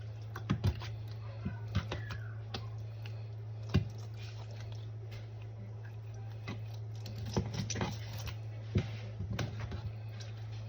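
Kitchen knife trimming fat off raw chicken breasts: scattered light taps and knocks of the blade, in clusters near the start, once about four seconds in and several times later on, over a steady low hum.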